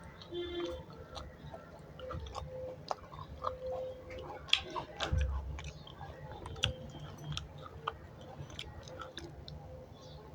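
A person chewing food close to the microphone, with irregular wet smacking and clicking mouth sounds.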